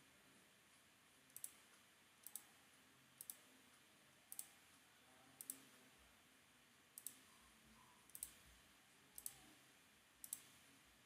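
Computer mouse clicking: about nine faint clicks, each a quick double tick of press and release, roughly one a second, over near-silent room hiss.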